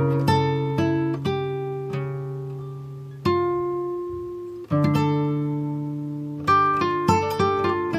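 Background music of plucked guitar notes, each ringing out and fading: a few single held notes, then quicker runs of notes near the end.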